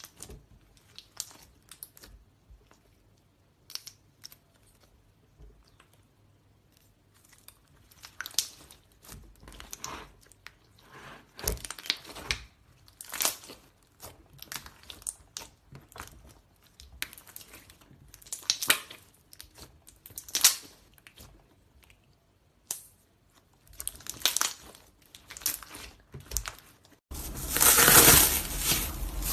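Slime being pressed and stretched by hand, giving irregular sticky crackles and pops, with a louder, denser crackling starting about 27 seconds in.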